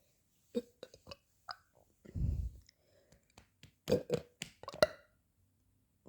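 A person burps once, a short low burp about two seconds in. A few sharp clicks come before it, and a louder run of clicks follows about a second later.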